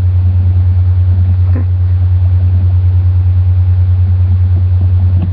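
Loud, steady low hum with a fast, even pulse, the same as under his speech either side; a single quiet spoken "okay" about a second and a half in.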